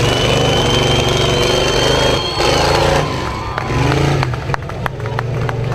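Engine of a caged S10 rock-crawling truck running hard as it climbs a rock ledge, with a steady high whine over it for the first two and a half seconds. After about three seconds the engine eases off and a run of sharp knocks and clicks follows.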